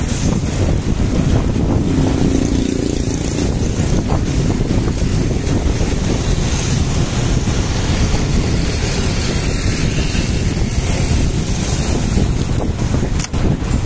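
Steady wind buffeting the microphone of a bike-mounted camera while riding a mountain bike along a road, mixed with tyre and road noise.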